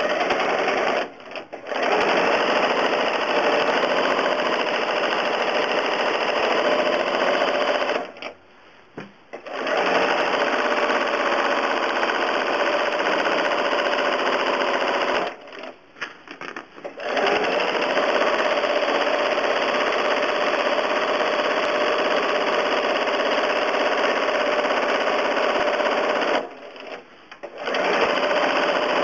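Home sewing machine running fast as it machine-quilts through the layers of a quilt, in long steady runs that stop briefly four times and start again.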